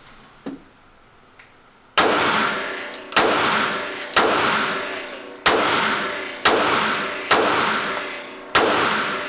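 Pistol fired seven times at a steady pace of about one shot a second. Each shot is followed by a long echo fading away in the enclosed indoor range. A couple of faint clicks come before the first shot.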